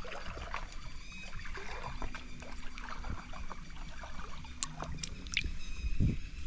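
A hand sloshing and paddling in shallow stream water, feeling along the stony bed for snails. A few light clicks come a little past the middle, and a louder splash comes near the end.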